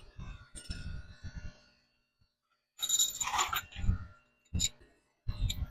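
Small metal hardware being handled against a truck frame: scattered light clinks and knocks of U-clamps and washers, with a short scrape near the middle.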